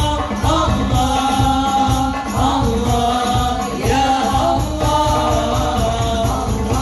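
Voices singing a devotional song (sholawat) over hand percussion with a steady beat.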